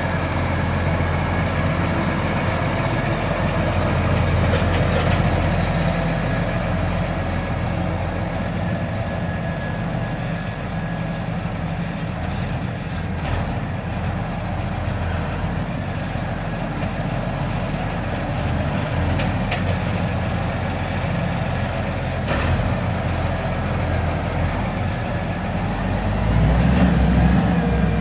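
New Holland TJ375 tractor's Cummins QSX15 14.9-litre six-cylinder diesel running as the tractor drives across the yard: a steady low engine drone that grows a little louder near the end.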